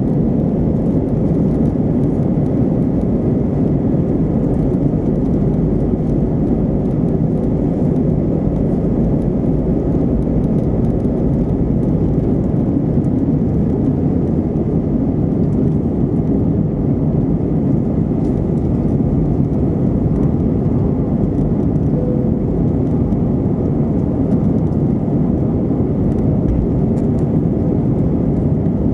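Airbus A320 jet engines at takeoff thrust heard from inside the cabin: a loud, steady, deep roar through the takeoff run, liftoff and initial climb, with a faint steady whine above it.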